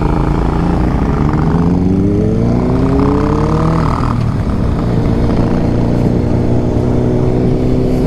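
Sport motorcycle engine pulling away from a standstill, its pitch rising for about three seconds before a break, then settling into a steady cruise over wind rush.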